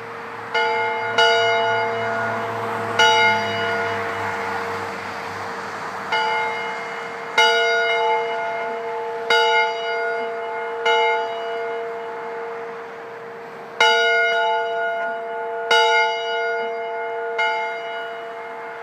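A single church bell tolling, struck about ten times at uneven intervals, each strike ringing on into the next so the tone never dies away.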